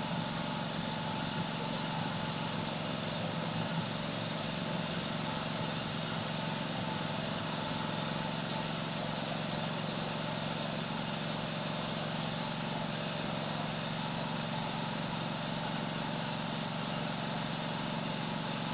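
Steady mechanical hum, like a running motor or engine, with an even hiss over it and no change in level.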